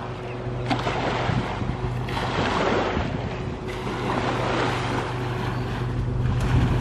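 Wind buffeting the microphone over small waves lapping on a sandy shore, with a steady low hum underneath.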